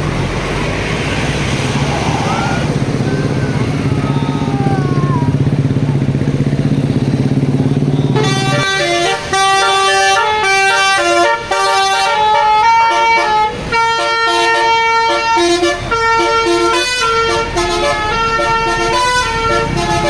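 A bus's diesel engine runs with a steady low hum. About eight seconds in, a telolet basuri multi-tone horn begins playing a quick melody of short notes that carries on to the end.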